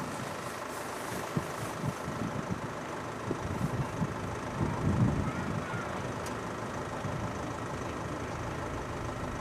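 DR1A diesel multiple unit running steadily at a standstill, with a few irregular low thumps.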